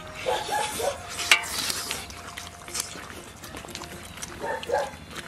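Mouth sounds of people eating cooked sheep hooves with their hands: wet chewing, gnawing and lip-smacking, with a sharp click about a second in. Two short vocal sounds come near the start and near the end.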